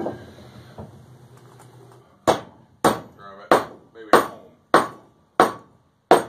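A wooden hammer handle's butt is rapped down hard on a plate on a workbench seven times, evenly about 0.6 s apart, starting a little over two seconds in. This drives the forged chipping-hammer head further down onto the freshly glued handle.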